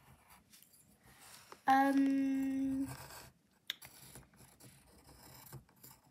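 Coloured pencil scratching on paper in faint colouring strokes. About two seconds in comes a steady hum on one level pitch, lasting just over a second and louder than anything else, and later a single sharp click.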